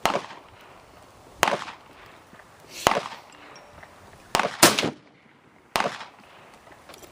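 Rifle shots on a shooting range: six sharp reports, about one every second and a half, with two in quick succession just past the middle, each with a short echo.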